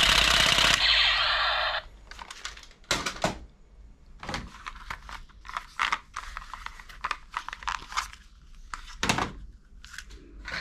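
A loud electronic sound effect from a battery-operated toy gun with a lit light stops about two seconds in. Then plastic toy guns click and knock against each other as they are handled and put back in a box full of toys.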